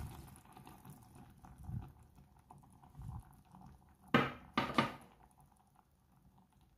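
Quiet handling as vinegar is poured from a glass into a stainless steel pot, with a few soft thuds, then two sharp knocks about half a second apart a little after four seconds in.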